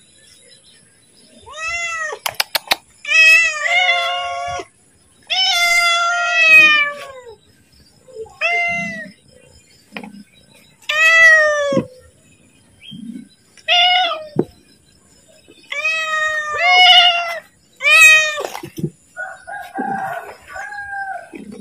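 Domestic cat meowing over and over, about a dozen meows, some short and some drawn out, as it calls to be fed. A few sharp clicks come about two and a half seconds in.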